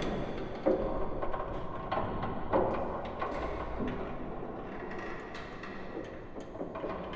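Ghost-ship sound-effect ambience: irregular creaks and knocks rising and falling over a steady low rumble.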